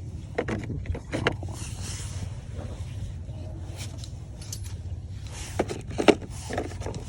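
Metal hand tools clinking and scraping on brake caliper bolts: scattered knocks and clicks, the sharpest about six seconds in, over a steady low hum.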